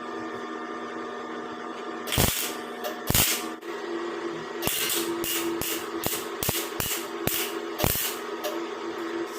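The back end of a screwdriver knocking rust out of rusted steel van panels: two separate sharp knocks, then a quick run of knocks at about three a second.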